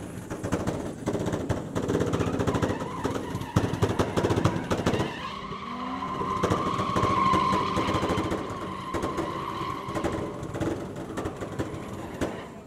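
A drift car's engine revving hard with a rough, crackling note, then a long steady tyre squeal from about five to ten seconds in as the car slides sideways.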